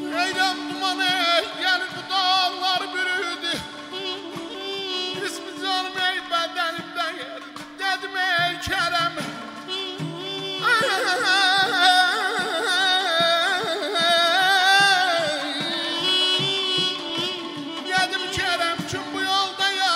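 Live Azerbaijani aşıq folk music: a balaban's wavering, ornamented melody over a steady saz drone with light drum strokes. About eleven seconds in, a man's strongly ornamented singing with the saz comes in and stays loud.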